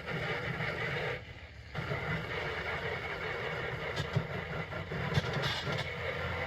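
Water spraying from a hose nozzle onto a metal toolbox, a steady hiss that starts, stops briefly about a second in, then runs on.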